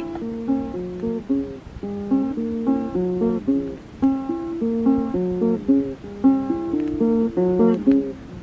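Music: an acoustic guitar fingerpicking single notes in a short figure that repeats about every two seconds.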